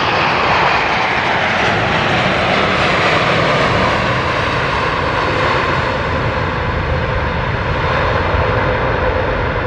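Jet airliner passing close by: loud engine noise with a whine that slides down in pitch over the first few seconds as it goes past, then a steady rumble.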